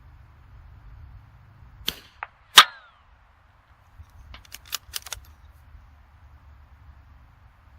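A single shot from a bolt-action .22LR benchrest rifle firing Lapua Super Long Range rimfire ammunition, a sharp crack about two and a half seconds in with a short ring after it. A couple of light clicks come just before the shot, and a quick run of metallic clicks follows about two seconds later as the bolt is worked.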